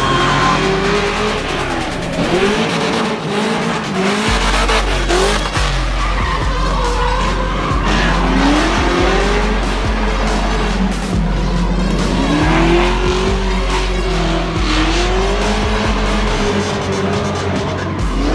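Drift cars' engines revving up and down over and over as they slide through the corners, with tyre squeal. Music plays underneath.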